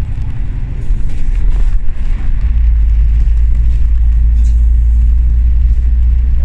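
Alexander Dennis Enviro500 MMC double-decker bus under way, heard from inside: a steady low drone of engine and road noise that grows stronger about two and a half seconds in.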